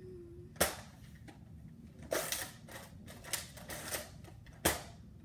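Nerf Zombie Strike SlingFire dart blaster being cocked and fired: a sharp plastic clack about half a second in, a run of rattling clacks between two and four seconds, and another sharp clack near the end.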